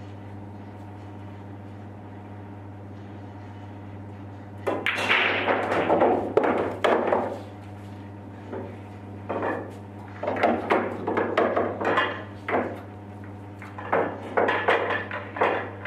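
Pool balls clacking against each other in three spells of rapid hard clicks starting about five seconds in; the last spell comes as the balls are set into the triangle rack. A steady low hum runs underneath.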